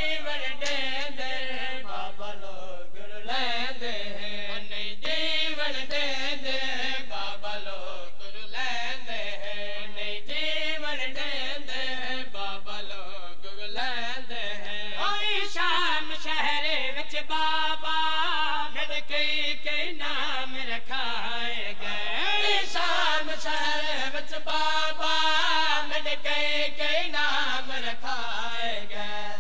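Male voices singing a noha, a Shia mourning lament, in a wavering chant, over many sharp slaps that recur throughout.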